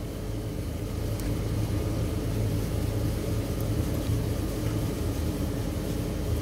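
Steady low rumbling hum.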